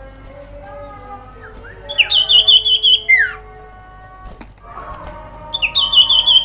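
Common iora (cipoh) calling: two bursts of rapid, high trilled notes, each about a second long and ending in a falling slurred note. Softer, drawn-out birdsong runs beneath.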